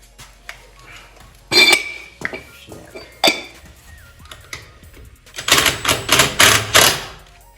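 Metal tools and wheel hardware clinking: a sharp ringing clink about a second and a half in, another click around three seconds, then a run of about six quick rasping strokes near the end.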